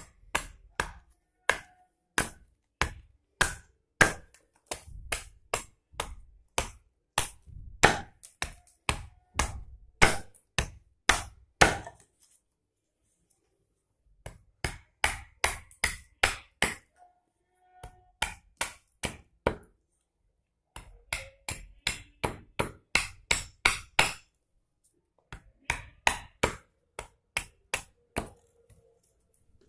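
Short-handled keser (hatchet-adze) chopping down a boxwood spoon blank held upright on a log stump: sharp wooden chops about two a second, in runs broken by short pauses, the longest about twelve seconds in. This is the roughing-out of the spoon blank, each stroke splitting off a piece of boxwood.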